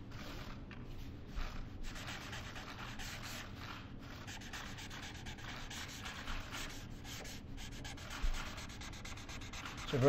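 A pen scratching and rubbing across paper as a signature is written, in a run of quick, scratchy strokes.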